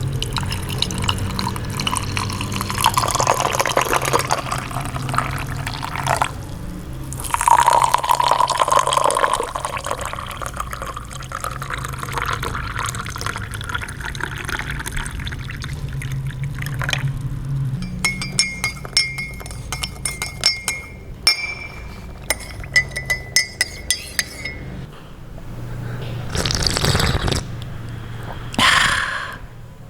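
Hot tea poured into a cup, the pitch of the stream rising as the cup fills, then a spoon stirring and clinking against the ringing cup, and two slurping sips near the end.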